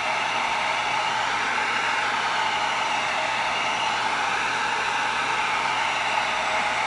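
Handheld heat gun blowing steadily, a constant rush of hot air, heat-sealing raw EVA foam so that it shrinks and tightens up.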